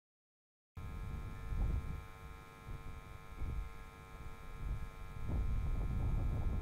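Steady machine hum made of several constant tones over a low rumbling noise that swells and fades. It starts abruptly just under a second in, after a moment of dead silence.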